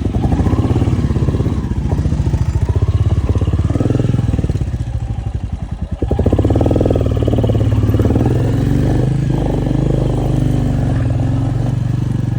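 Motorcycle engine running while riding, with a steady rapid beat of firing pulses. The throttle eases off briefly about six seconds in, then the engine pulls steadily again.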